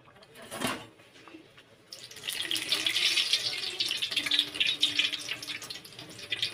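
Luchi deep-frying in hot oil in a steel kadai: a brief clatter about half a second in, then from about two seconds in, loud, dense sizzling and crackling of the oil.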